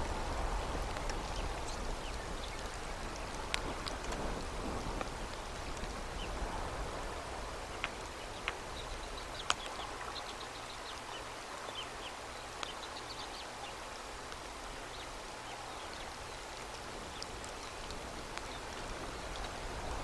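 Steady outdoor background hiss at a bald eagle's snowy nest, with scattered small ticks. Around halfway there are a few faint, short high chirps.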